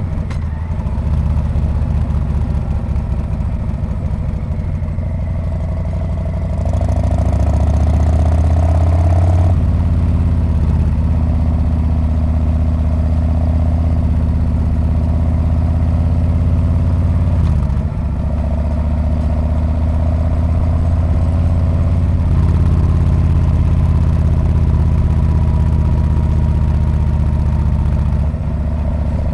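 Harley-Davidson Street Bob's V-twin engine and exhaust heard from the saddle while riding, running steadily under way. About a third of the way in the engine note climbs and gets louder, then drops suddenly; it eases off briefly around the middle and again near the end.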